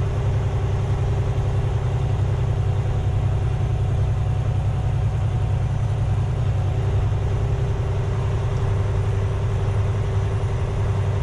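Heavy rotator tow truck's diesel engine running steadily while driving slowly along a rough dirt track, heard from inside the cab: an even low drone with a constant hum above it.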